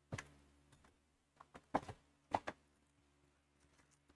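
Foil trading-card packs and cards being handled on a table: several short, faint taps and crinkles, bunched together in the middle.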